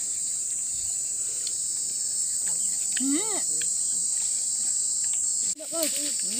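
Steady, high-pitched chorus of insects in the surrounding vegetation. A child's voice is heard briefly about halfway through, and children talk again near the end.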